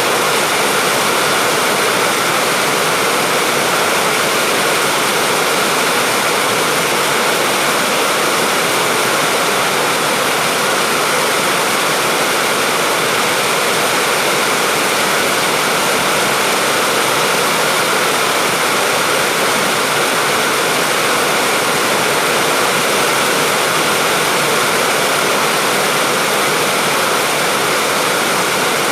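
Steady rain falling, a dense, even hiss with no single drops, thunder or other sounds standing out.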